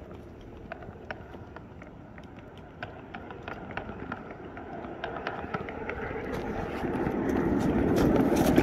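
Footsteps crunching on gravel and snow, a string of sharp crunches that grow louder and denser through the second half.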